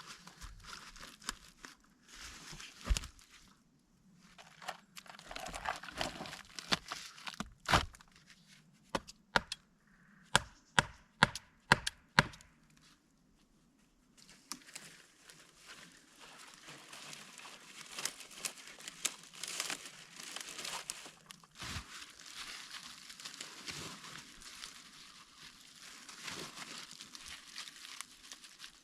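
Wood being chopped or struck: scattered sharp knocks, then a quick run of about six strikes near the middle. After a short pause comes a long stretch of crackling and rustling, like branches and brush being handled.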